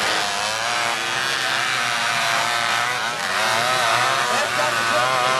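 Engines of several small off-road racing buggies revving up and down together as they race round a dirt track, their pitch rising and falling as the drivers go on and off the throttle.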